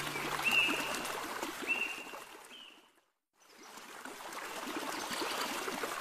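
Running water from a stream, with three short bird call notes, each rising quickly then holding one pitch. The sound fades out about halfway through, then the water fades back in after a brief silence.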